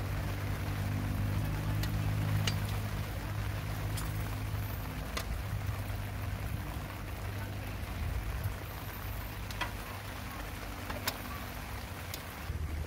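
Coffee trickling from a stovetop moka pot into a glass mug, over a steady low hum that weakens after about five seconds. A few faint light clicks.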